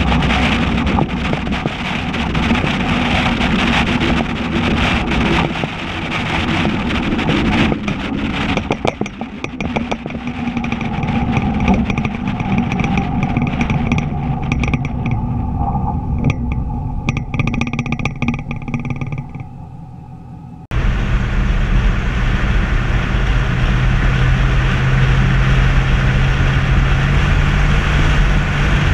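A 2004 Dodge Ram 1500's 5.7 L Hemi V8 with straight-piped true dual exhaust through Dynomax Race Bullet mufflers, heard as the truck drives along, mixed with wind and road noise. About two-thirds of the way in, the sound drops off briefly, then cuts suddenly to a steady, deep exhaust drone.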